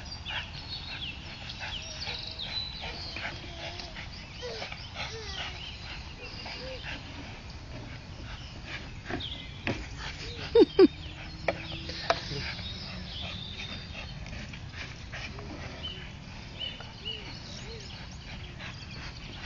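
Staffordshire bull terrier making occasional short whines and yelps, with two louder ones about ten and a half seconds in, over steady low background noise and scattered clicks.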